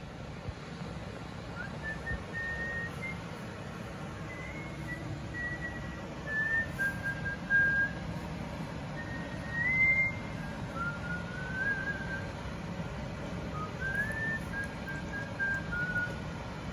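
A whistled melody, single clear notes stepping and sliding up and down, over a steady low rushing noise.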